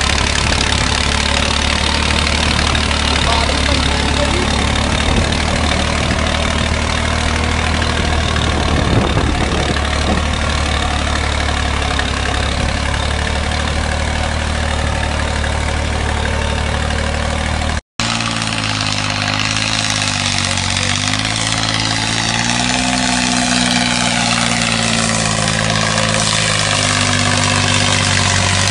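Massey Ferguson tractor's diesel engine running steadily under load while pulling field implements through dry soil. After a brief break about 18 seconds in, the engine's pitch rises and falls as its speed varies under the load.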